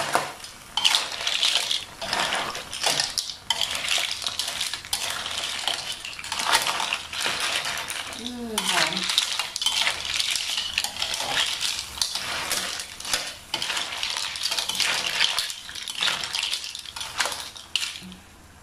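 Metal spatula stir-frying a wok full of mussels in their shells: dense, irregular clattering of shells and the spatula scraping the aluminium pan, easing off just before the end.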